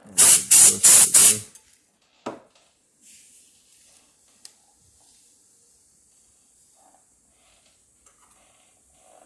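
Four quick, loud bursts of spray from a can of compressed air, with one more short burst about two seconds in, dusting out the computer's memory slot.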